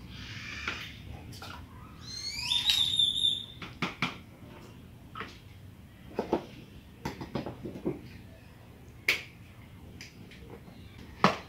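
Water splashing into a plastic blender jar of strawberries at the start, then plastic clicks and knocks as the blender lid is handled, with the sharpest snap near the end. A bird gives one rising call about two seconds in.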